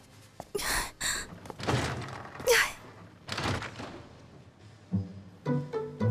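A handful of dull thuds and bangs from restroom stall doors, several in the first few seconds. Light plucked-string music comes in near the end.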